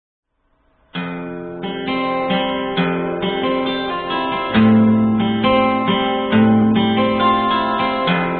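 Guitar music that starts about a second in: a run of chords changing every half second or so, with a heavier bass part joining a little past halfway.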